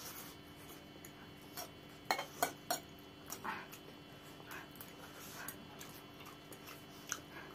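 Noodle-eating sounds: metal forks clicking against plates, three quick clicks about two seconds in and a few more later, between soft slurps and chewing of noodles.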